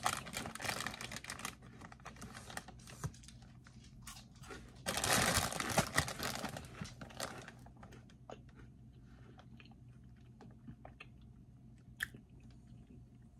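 A person crunching and chewing peanut-butter protein cereal puffs while handling a crinkly plastic bag. The crunching and crinkling come in two longer bursts, near the start and from about five to seven seconds in, then thin out to sparse faint clicks of chewing.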